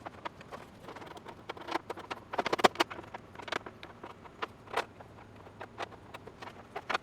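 Sped-up hammer taps on sheet steel, quick and irregular, heaviest in a cluster a little before the middle, as a homemade grooved flat-bar tool is driven along the bent inner trunk lid panel of a 1928 Ford Model A to straighten it.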